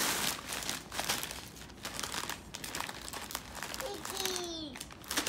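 Crinkly plastic packaging being handled and rustled in quick, irregular crackles. A brief gliding voice sound comes in near the end.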